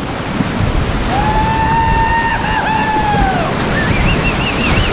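Rushing whitewater of a creek running high, a steady churning roar of a rapid heard from a kayak. Over it a long held call lasts about two seconds, then a quick warbling series of higher calls starts near the end.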